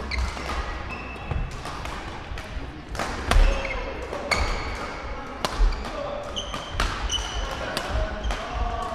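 Badminton doubles rally: repeated sharp racket strikes on the shuttlecock, some from neighbouring courts, with short squeaks of court shoes on the wooden floor and thudding footfalls.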